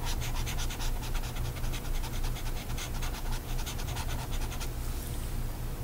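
A stylus scratching rapidly back and forth on a tablet as handwriting is scrubbed out, stopping near the end. A steady low hum runs underneath.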